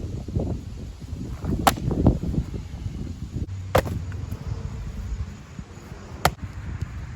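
Three sharp wooden knocks, about two to two and a half seconds apart, over low rustling and wind noise.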